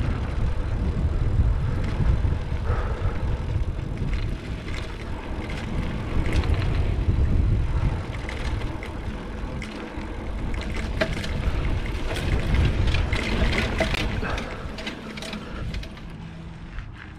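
Wind buffeting the microphone while a mountain bike rattles over a rough dirt trail, with many sharp clicks and knocks, densest in the second half. The sound grows quieter over the last couple of seconds.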